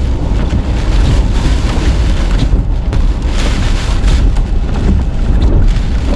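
Hurricane-force eyewall wind blowing in gusts, with heavy low rumbling wind buffeting on the microphone that swells and eases every second or so.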